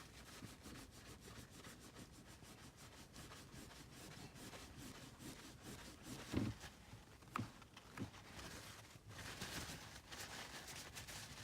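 Paper towel with rubbing alcohol scrubbing a car's gear shift knob: faint, steady rubbing with a few light knocks in the middle, the rubbing stronger near the end.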